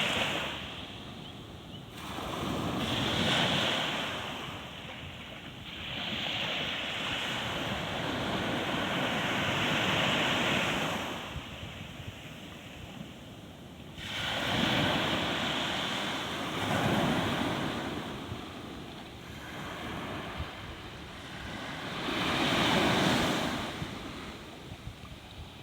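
Sea waves breaking and washing on a shore, the surf swelling and falling away every few seconds, with wind buffeting the microphone.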